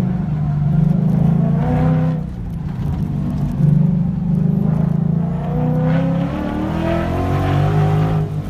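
Car engine heard from inside the cabin, revving under load: its pitch climbs about two seconds in, eases off, then climbs steadily again through the second half.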